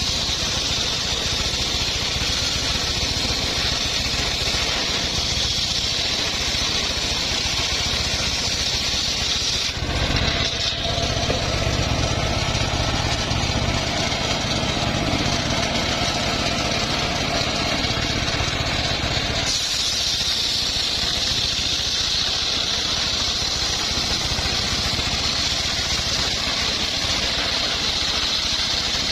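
Circular saw running steadily for wood cutting, a high whine over a mechanical drone. For about ten seconds in the middle the sound turns heavier and lower, with a steady mid-pitched tone, then returns to the earlier sound.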